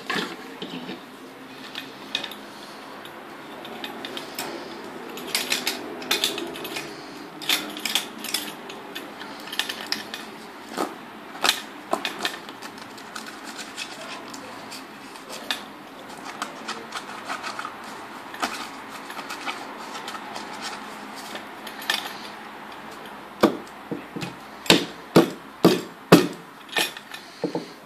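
Homemade noise instrument made from a wooden cricket bat fitted with wire springs, a wavy metal strip and a metal hinge bracket, played by hand: scattered sharp clicks and knocks of metal and wood. Near the end come about seven loud strikes in quick succession.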